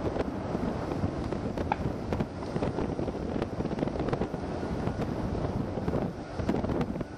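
Distant crackling roar of a JAL Airbus A300-600's twin jet engines as the airliner rolls out on the runway after landing, mixed with wind buffeting on the microphone.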